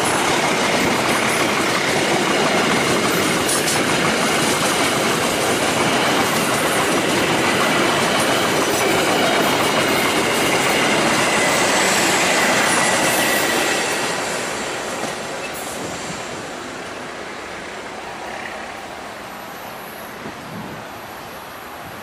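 Stainless-steel passenger coaches of the Argo Dwipangga express rolling past close by: a steady loud rumble of wheels on rail, with clicks at the rail joints and a faint high wheel squeal. The sound falls away about fourteen seconds in, as the end of the train passes.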